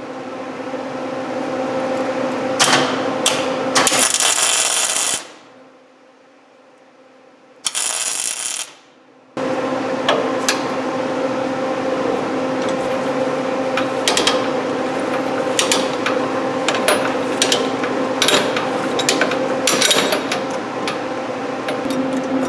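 Miller-Matic MIG welder laying a bead on half-inch steel plate in high range: a steady crackling, sizzling arc with sharp pops over a steady hum. It stops about five seconds in, gives one short burst, and runs steadily again from about nine and a half seconds.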